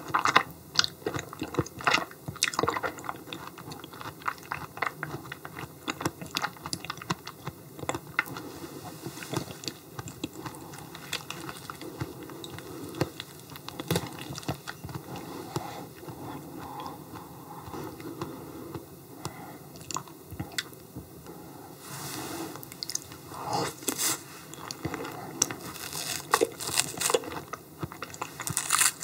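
Close-miked chewing and biting on yellow stingray liver, with many irregular wet mouth clicks, busier and louder in the last few seconds.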